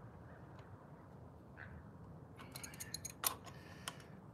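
A few light metallic clicks and rattles from hand work at an electric bike's rear wheel hub, bunched between about two and a half and four seconds in, the sharpest about three seconds in: the rear axle nuts being checked for tightness.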